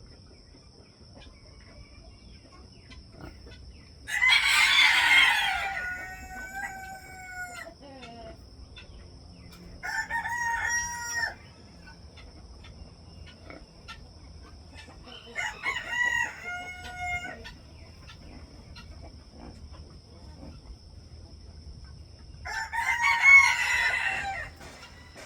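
Roosters crowing, four crows in all with quiet gaps between; the first is the longest and trails off downward at the end.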